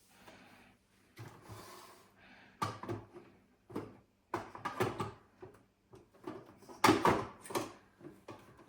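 Irregular handling noises: a run of short knocks, clicks and scrapes, with the loudest cluster about seven seconds in.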